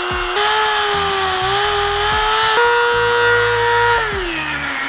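Handheld Dremel rotary tool running at high speed, cleaning surface rust off a thin sheet-metal mount bracket ahead of stitch welding. It gives a steady high whine whose pitch steps up twice and sags near the end as the tool bears down or slows.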